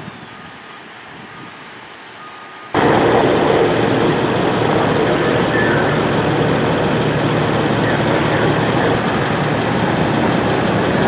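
Steady, loud engine noise of emergency vehicles idling close by, starting abruptly about three seconds in. Before it, quieter traffic ambience with a few faint short beeps.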